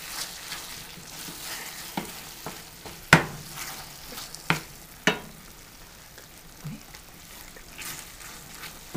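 Wooden spoon stirring thick, cheesy spinach and artichoke dip in a hot stainless steel skillet, with a faint sizzle underneath. A few sharp knocks of the spoon against the pan come in the first half, the loudest about three seconds in.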